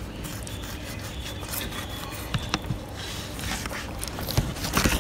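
Kitchen knife slicing a fillet off a raw fish along the rib bones: soft scraping of the blade over flesh and bone, with scattered small clicks that grow a little louder near the end.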